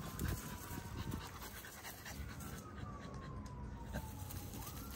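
French bulldog panting. Behind it a siren's wail falls slowly in pitch and swoops back up near the end.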